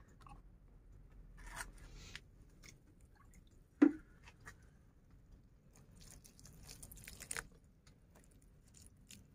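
Soft rustling and crackling of pots and plastic sheeting being handled among small potted succulents, with one sharp knock about four seconds in and a longer rustle near the end.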